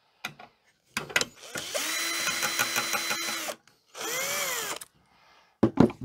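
Electric drill-driver backing a screw out of a fuse holder on a circuit board. A few clicks as the bit seats, then a steady run of about two seconds with a whine. A short second burst speeds up and winds down, and handling clicks follow near the end.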